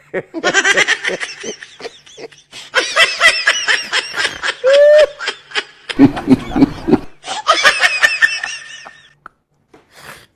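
Laughter in quick repeated bursts, several rounds of it, with a deeper laugh about six seconds in. It stops shortly before the end.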